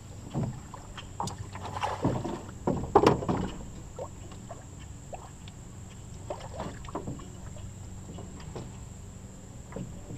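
Knocks and scuffs from a small flat-bottomed boat as an angler shifts his weight and casts a fishing rod in it, the loudest cluster about two to three seconds in and a few more around six to seven seconds.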